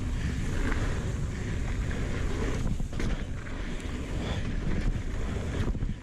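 Wind rushing over an action camera's microphone as a mountain bike rolls down a dirt trail, with tyre rumble and a few light rattles from the bike.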